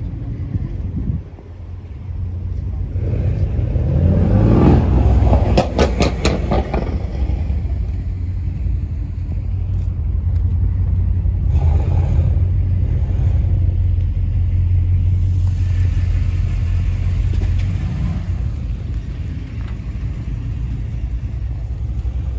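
Steady low rumble of a motor vehicle, swelling louder about four to six seconds in, with a few sharp clicks in the loudest stretch.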